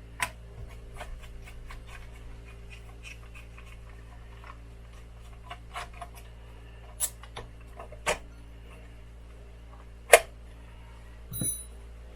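Scattered small clicks and taps of a hex key and the knobs' set screws being worked on a small radio transceiver, with a few sharper clicks and a brief metallic clink near the end, over a steady low hum.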